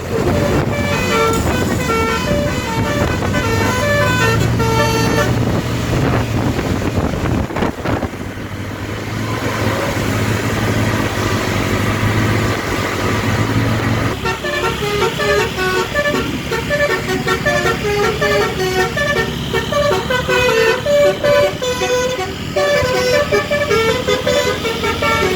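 Bus telolet air horns playing a tune as quick runs of short stepped notes, driven by a V4 horn module through DAV air horns, over a steady engine rumble. The tune stops about six seconds in, leaving engine and road noise. A new tune starts about fourteen seconds in and runs on.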